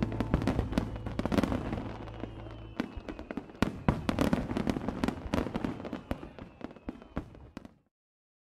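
Fireworks sound effect: dense crackling with sharp pops and bangs, cutting off suddenly near the end.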